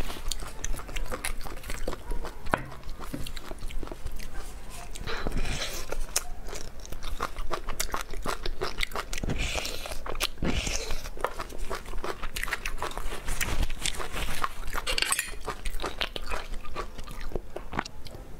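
Close-miked eating sounds: chewing and biting on braised beef bone marrow, with many small, irregular mouth clicks throughout.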